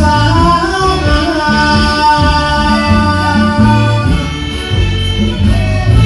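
Thai ramwong band playing live through stage speakers: a steady bass and drum beat under a held, gliding melody line.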